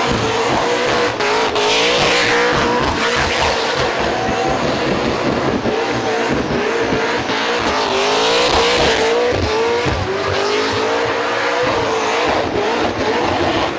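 Supercharged V8 of an HSV E Series Clubsport held at high revs through a burnout, its note wavering up and down, over the hiss and squeal of the spinning rear tyres.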